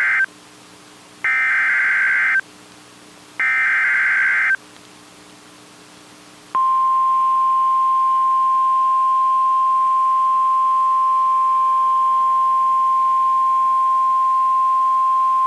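Emergency Alert System warning start over NOAA Weather Radio. It opens with the end of one burst of SAME header data and then two more, each a harsh electronic warble of about a second, with a second's gap between them. About six and a half seconds in, the long steady single-pitch 1050 Hz attention tone begins. This is the coded header and alarm that announce a new weather warning.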